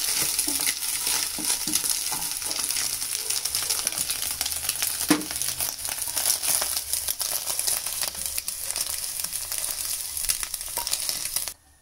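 Scrambled eggs sizzling and crackling in hot oil in a nonstick pan as a wooden spatula pushes them around. The sizzle cuts off suddenly near the end.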